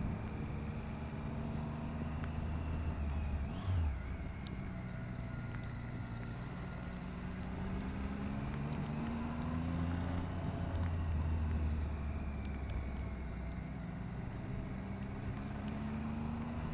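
Motorcycle engine running under way, its revs rising and falling through the bends, with wind rush on the microphone. A single thump stands out about four seconds in.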